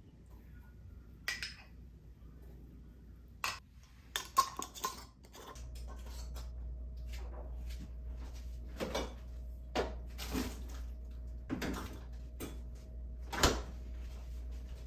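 Metal spoon clinking against glass mason jars as cream, jam and fruit are stirred by hand, a handful of separate clinks. After about five seconds comes scattered kitchen clatter of dishes over a low steady hum.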